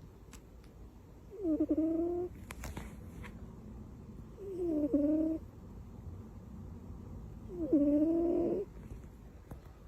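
A sleeping cat snoring: three snores about three seconds apart, each about a second long and with a clear pitch.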